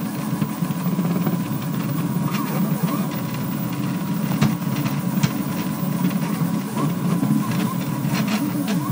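Delta 3D printer's stepper motors buzzing and whining through very fast printing moves, the pitch gliding up and down as the effector changes direction, over a steady high tone and occasional sharp clicks.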